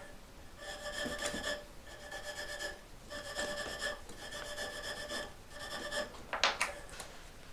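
A block of green polishing compound rubbed up and down a taut string, about six rasping, slightly squeaky strokes as the string is loaded with compound, then a brief louder sound near the end.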